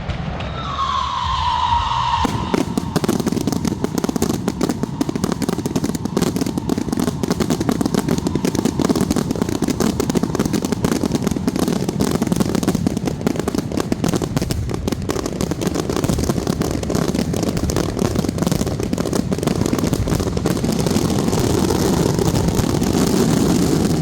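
A firework whistle glides downward for about a second and a half. It gives way to a dense, unbroken crackle of firecrackers going off in rapid succession.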